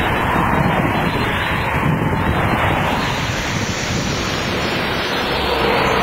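Jet engine noise of a Boeing 777 climbing away after takeoff, a steady rumbling roar, mixed with strong wind buffeting the microphone.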